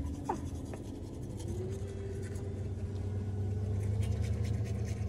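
A toothbrush scrubbing teeth in quick scratchy strokes, over a steady low hum.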